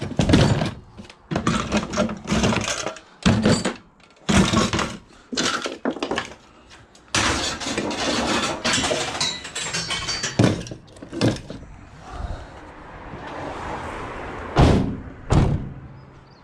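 Scrap metal and appliance parts being handled and dropped in the back of a van: repeated clattering knocks and thuds, a busier stretch of scraping and rattling in the middle, and two heavy thuds near the end.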